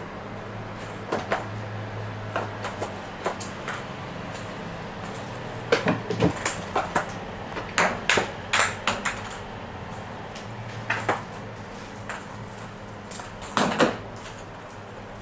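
Scattered light clicks and knocks, coming in a busy flurry mid-way and again near the end, over a steady low hum.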